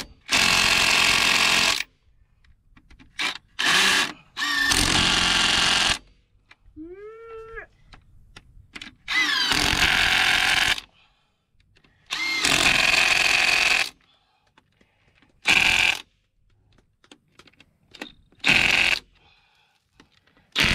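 Cordless impact driver hammering bolts tight on the final drive of a Cat E120B excavator, in about eight separate bursts, most lasting a second or two and a few short blips, with quiet gaps between.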